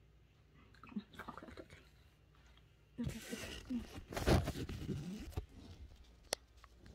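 Rustling and handling noise as the phone and clothing are moved about, loudest for a couple of seconds from about three seconds in, with faint rustles before it and a single sharp click near the end.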